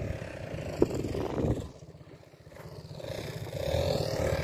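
ATV engine running, dropping away about two seconds in and then building again towards the end.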